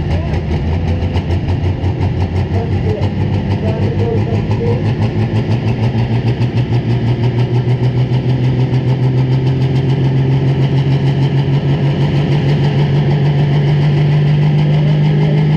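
Pro stock pulling tractor's diesel engine revving up, its pitch climbing slowly and steadily and growing louder, with a fast pulsing beat.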